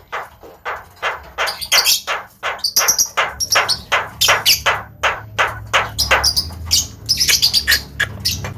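Javan myna (jalak kebo) giving a rapid run of short, sharp chirps and clicks, several a second.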